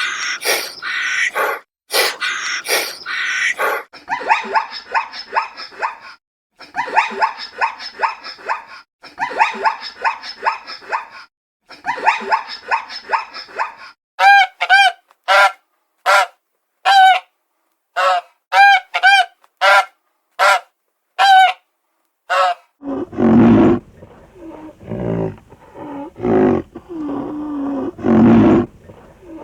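A run of animal calls: rapid clustered calls, then a dozen short, separate honks, then a deep growling roar starting a little over two-thirds of the way in.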